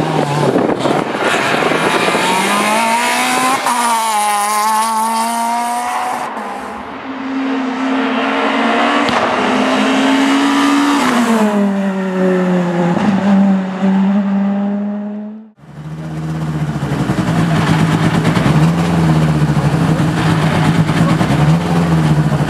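Rally car engines at full throttle: the engine note climbs, drops back at the gear changes and falls away as a car goes past. About two-thirds of the way through the sound cuts off abruptly and another car's engine takes over at lower revs, its pitch wavering up and down.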